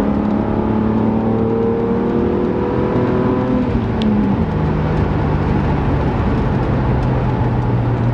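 Supercharged 4.0 straight-six of a 1995 Jaguar XJR (X300) through a stainless steel sport exhaust, heard from inside the cabin while driving. It pulls with revs slowly rising for about four seconds, then the revs drop and it runs steadily at lower revs.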